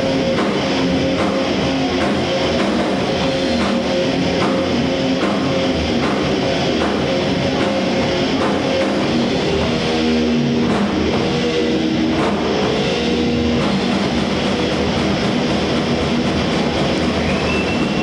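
Live heavy metal band playing loud, with distorted electric guitars over a drum kit. Drum strokes fall about every half second through the first half, the guitar part changes about ten seconds in, and a high wavering tone comes in near the end.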